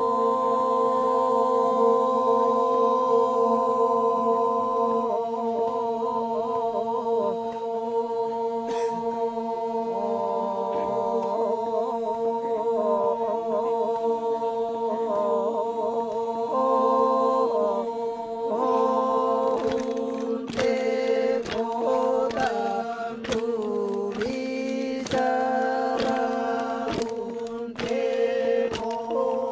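Ma'nimbong, the Torajan men's ceremonial chant: a group of male voices sings unaccompanied, holding a steady drone while a melody moves above it. From about twenty seconds in, sharp beats at roughly one a second join the singing.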